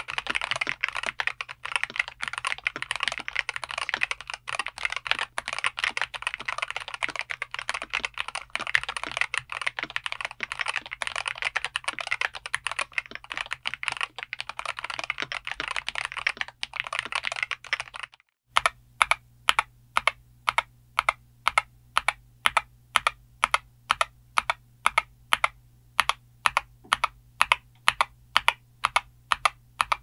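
Keydous NJ80-C Hall effect keyboard with Outemu Magnetic Beige Pink linear switches, aluminum plate and PBT double-shot keycaps, typed on quickly in a dense run of keystrokes. After a brief pause about 18 seconds in, single keys are pressed one at a time, about two a second.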